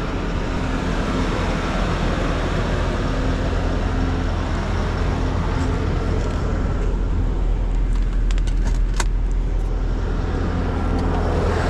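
Steady low rumble of a car engine idling, with a few light clicks about eight to nine seconds in.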